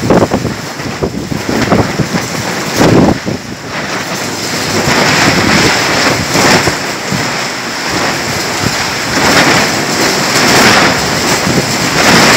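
Heavy rain and strong gusting wind in a thunderstorm. Gusts buffet the microphone with low surges near the start and about three seconds in, then settle into a steadier hiss of rain.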